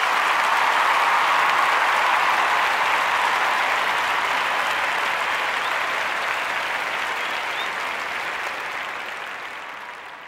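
Applause from many hands, at full strength about a second in and then slowly dying away.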